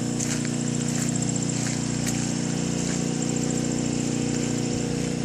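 An engine running steadily at idle, with a fast, high-pitched ticking over it for the first few seconds.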